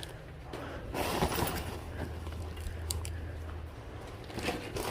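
Light rustling and a few small clicks of items being handled, over a low steady hum that stops about four seconds in.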